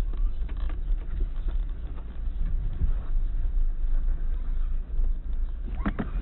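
Audi Q5 rolling slowly over a rough dirt and gravel village road, heard from inside the cabin: a steady low rumble of tyres and suspension with scattered knocks and rattles. A short, sharper noise comes near the end.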